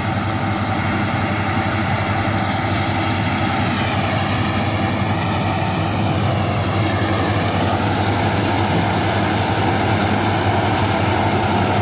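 Combine harvester's engine running steadily, a continuous low drone at an even level.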